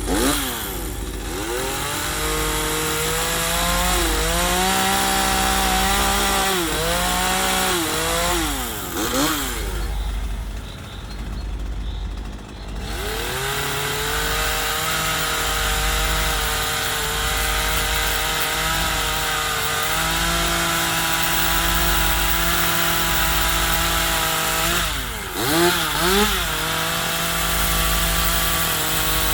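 Chainsaw running and cutting into a wooden log, its engine revving up and down as the blade works the wood. The revs drop to a lower, quieter run about ten seconds in, then climb and hold steady before dipping briefly near the end.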